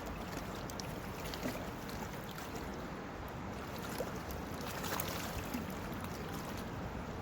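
Steady rushing of a small river's flowing water, with a few faint clicks.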